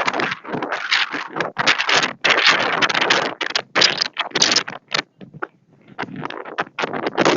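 Wind buffeting the microphone in irregular gusts, with sudden brief drops between them.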